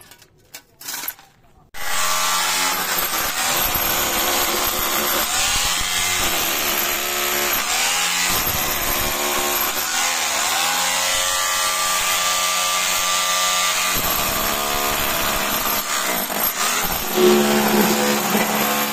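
Electric rotary hammer drill with a pointed chisel bit hammering into the solid concrete top of a pizza oven. It starts about two seconds in and runs on continuously, its pitch wavering under load.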